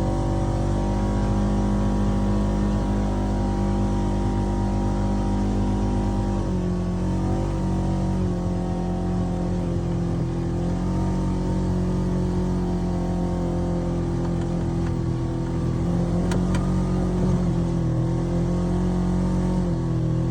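Polaris RZR 900 side-by-side's twin-cylinder engine running at a steady speed. Its pitch steps down slightly about six seconds in, then holds steady again.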